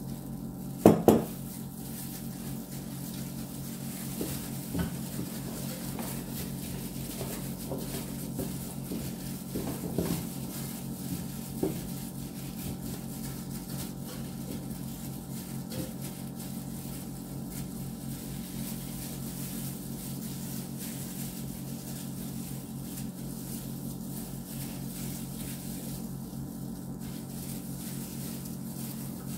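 Chicken pieces and potato wedges being mixed by hand in an enamel roasting pan, with a loud double knock about a second in and a few lighter knocks and clatters against the pan; a steady low hum underneath.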